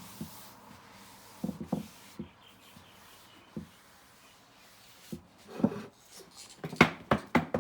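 Cloth wiping excess sealer off a wooden box lid, with scattered light knocks as the wood is handled and a quick cluster of sharper knocks near the end.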